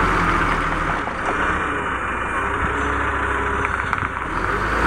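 Diesel engine of a HOWO 420 semi-truck running steadily at low speed while the truck backs up.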